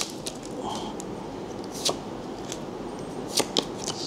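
A stack of Pokémon trading cards being handled and shuffled through by hand, with a handful of light, sharp card clicks spaced out over the few seconds.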